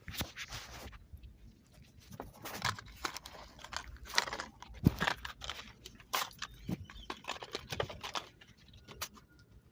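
Irregular clicks, scrapes and crinkling from a small hand tool being handled, a few sharper knocks among them.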